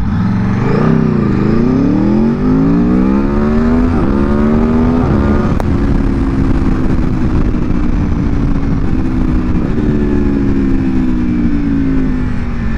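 Aprilia Tuono V4 Factory's V4 engine with its stock exhaust, pulling under load: the pitch dips, then climbs steadily, with brief steps down at about four and five seconds in as it shifts up. It then holds a steadier pitch, and after another step near ten seconds it slowly falls.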